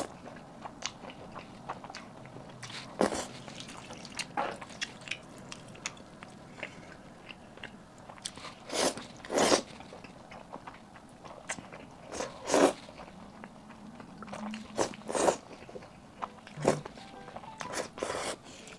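Close-up eating sounds of sauce-coated noodles being slurped off chopsticks and chewed: irregular wet slurps, several of them longer and louder in the middle stretch.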